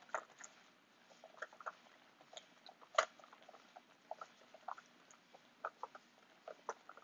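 Silicone whisk beating a cream-and-egg-yolk custard in a stainless steel bowl: faint, irregular wet clicks and taps, with one louder knock about three seconds in.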